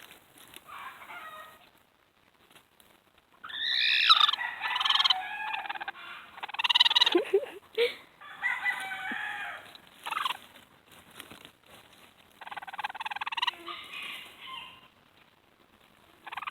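Rooster-like crowing and clucking calls in several separate bursts, the loudest run a few seconds in, with short quiet gaps between.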